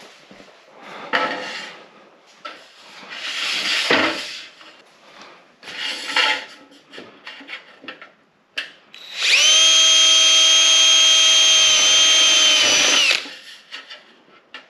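A DeWalt cordless drill runs at a steady high whine for about four seconds in the second half, drilling a hole through sheet-metal ceiling molding. Before it come a few rustles and knocks of handling.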